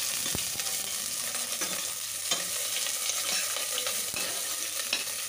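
Chopped onions and garlic sizzling steadily in hot oil in a stainless steel pot, fried until they brown, with a few short knocks of a spatula against the pot.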